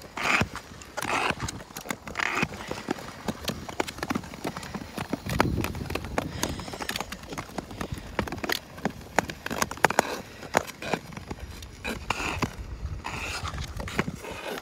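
Ice skates gliding and scraping over natural lake ice, with the tips of ski-style poles clicking against the ice in an uneven rhythm.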